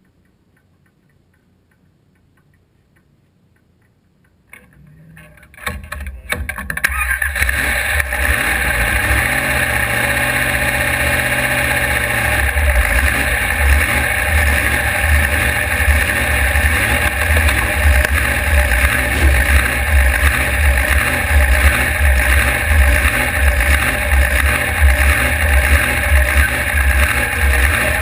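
Drag race car's engine starting after a few seconds of near silence, catching about five seconds in, then running at a loud, steady idle with a pulsing low end. It is heard from inside the cockpit.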